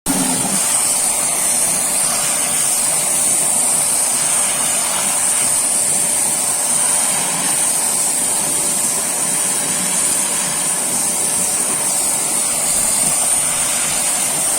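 Pressure washer spraying water onto a window AC's condenser coils to wash off foamed cleaning chemical and dirt: a steady, loud hiss of the water jet over the washer's running motor.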